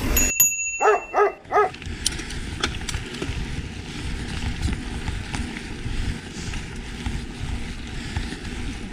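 A dog barks three times in quick succession about a second in, followed by a steady low rumble.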